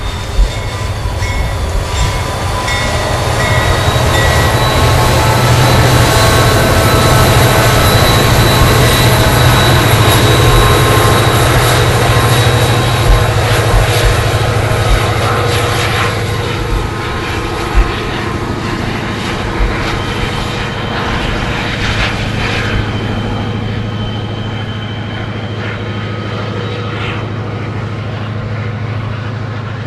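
Two EMD SD40-2 diesel locomotives, each with a 16-cylinder two-stroke engine, running light past the microphone with a loud, steady low engine drone and a few high steady tones. The sound builds to its loudest several seconds in, then slowly fades as the engines move away, with a few sharp clicks along the way.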